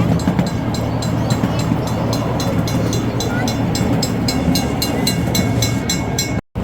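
Miniature ride-on train running along its track: a steady rumble with a regular clicking about four times a second. A faint high whine joins in about halfway through, and the sound cuts off abruptly just before the end.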